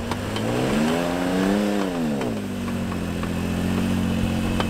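Off-road truck's engine revving under load on a slushy snow climb: the pitch rises about a second in, peaks, and drops back within about a second to a steady lower run.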